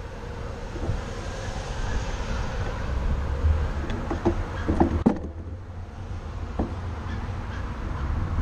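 City street traffic noise with a steady low rumble, likely wind on the microphone, broken by a few light clicks and knocks around the middle.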